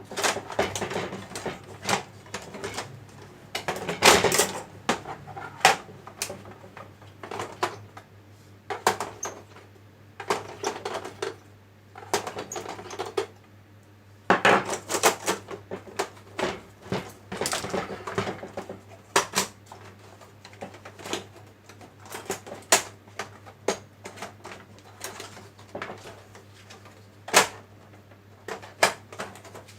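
Irregular clicks, clinks and knocks of small hard parts and hand tools being handled while an Epson EB-436W projector is taken apart, with busier clusters of clatter at a few points. A steady low hum runs underneath.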